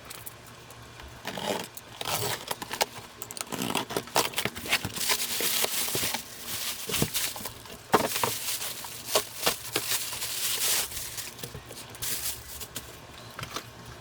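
Handling noises: irregular crinkling and rustling with small sharp clicks and knocks, busiest in the middle, over a faint steady low hum.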